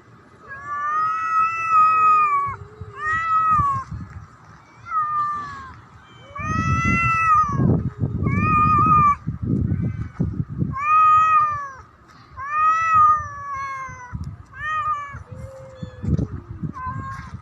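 A cat meowing loudly and repeatedly in long drawn-out yowls, about ten calls, each rising and then falling in pitch. A low rough rumbling noise runs under the calls in the middle and again near the end.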